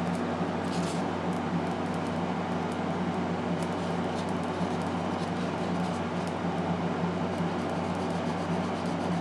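Steady mechanical hum and hiss, unchanging, with a few faint light clicks over it.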